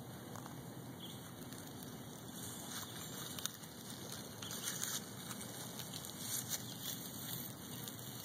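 Light rustling and crackling of dry leaves and twigs, with scattered small ticks and a few sharper clicks near the middle.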